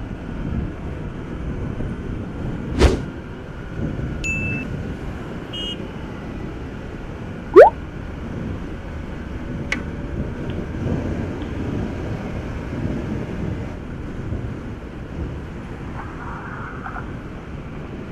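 Steady running noise of a motorcycle under way on a highway: engine, tyres and wind on the microphone mixed together. A sharp click comes early, and a brief, loud rising tone sounds a little before the middle.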